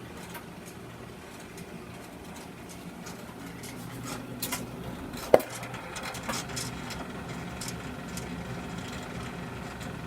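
Euhomy compact clothes dryer running, its turning drum creaking and clicking irregularly over a steady motor hum, with one sharp loud creak about five seconds in. The owner is unsure whether this creaking is normal, a fault, or the sign of too heavy a load.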